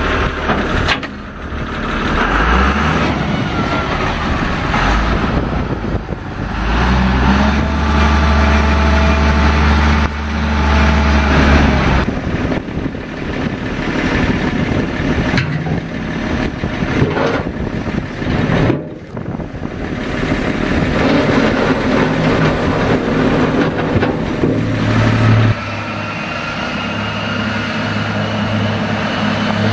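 1992 John Deere 544E wheel loader's diesel engine running, heard in several short takes that break off suddenly. About 25 seconds in, the loader is moving and a whine slowly rises in pitch over the engine.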